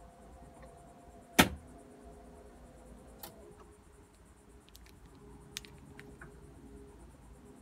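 Electric TV lift motor running with a faint steady hum as it raises a flat-screen TV, with one sharp click about a second and a half in and a few lighter clicks later.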